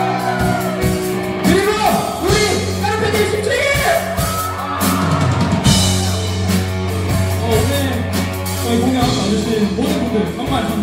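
Live rock band playing: sung vocals over electric guitars, bass, keyboard and drums.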